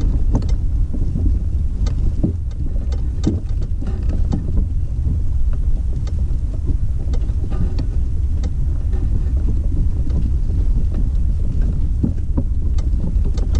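Wind buffeting the microphone: a loud, steady low rumble with scattered small knocks.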